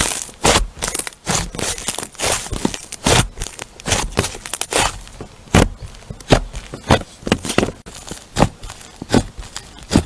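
Crunchy slime worked by hand, giving an irregular run of sharp crackles and pops.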